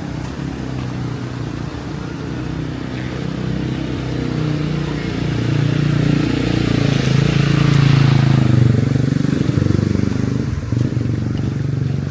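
Motor vehicle traffic running along a flooded street, the engines swelling as one vehicle passes close about eight seconds in with a rushing hiss, then easing off.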